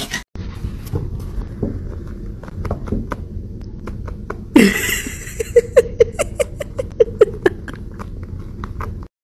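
Kitten's cry, falling in pitch, about halfway through, followed by a fast run of about ten short, repeated cries over a couple of seconds. Light clicks and scratches sound throughout.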